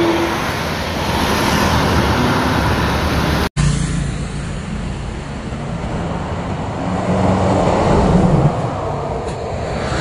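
Road traffic noise: engines and tyres of passing cars and motorbikes. There is a short dropout about three and a half seconds in, and an approaching car's engine note grows louder between about seven and eight and a half seconds.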